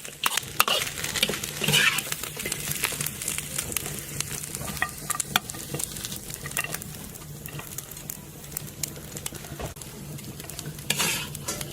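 Duck gizzards stir-frying in a hot wok: oil sizzling while a metal spatula scrapes and clacks against the pan in quick, irregular strokes. A steady low hum runs underneath.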